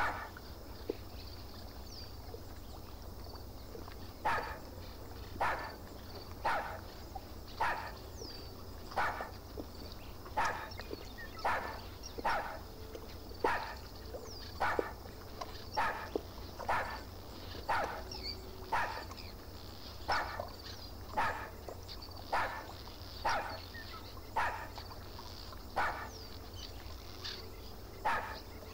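A dog giving short, sharp barks in a steady series, about one a second, starting about four seconds in. Faint high chirps sound now and then.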